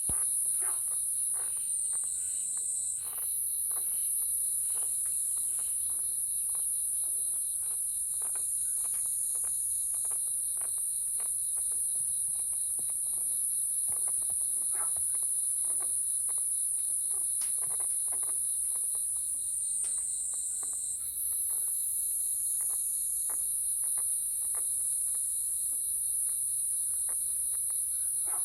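A sleeping chicken's short snoring breaths, about one to two a second, over a steady high-pitched chorus of night insects that is the loudest sound. The owner takes the snoring for a sign of a cold.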